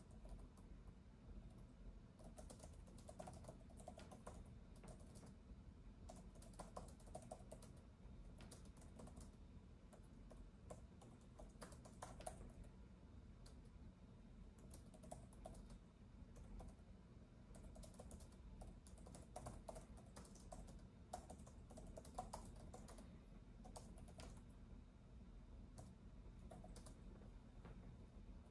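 Faint typing on a keyboard: keystrokes come in irregular runs with short pauses between them, over a low steady background hum.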